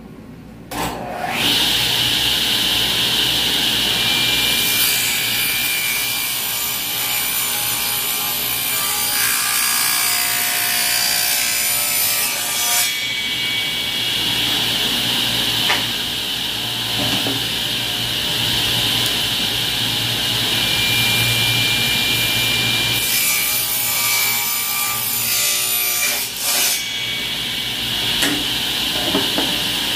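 Table saw starting up about a second in, then ripping narrow strips off a wooden board, the blade cutting continuously through the wood.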